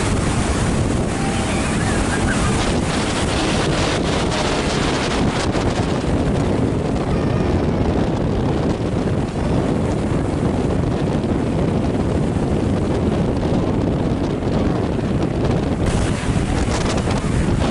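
Wind buffeting the microphone: a loud, steady rumble of noise.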